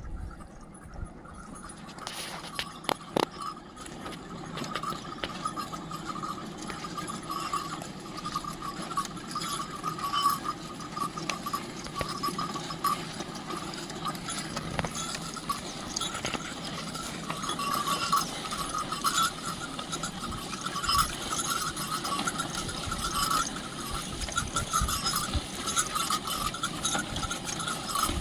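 Small bells jingling and clinking on and on, with many scattered light clicks, from about two seconds in.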